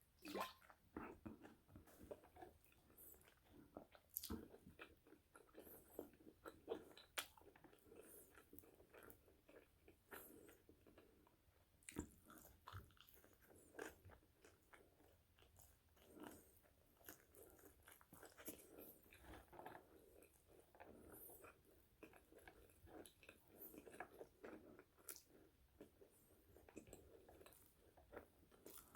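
Close-miked eating of french fries: soft crunchy bites and steady chewing, with many small crunches.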